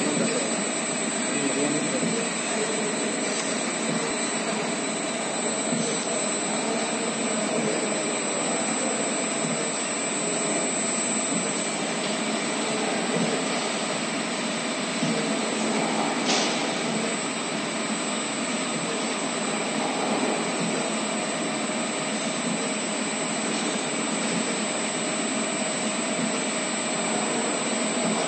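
Paddle mixer running steadily, its motor-driven paddle shaft churning dry powder in a stainless-steel trough, with a constant high-pitched whine.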